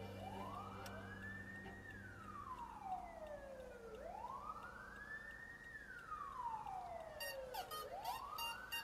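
A siren wailing slowly, rising and falling about once every four seconds. A beat of music comes in near the end.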